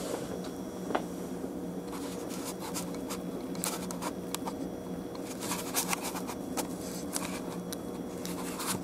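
Lionel O-gauge model trains running on a layout: faint irregular clicking and rattling of the trains on the track over a steady electrical hum.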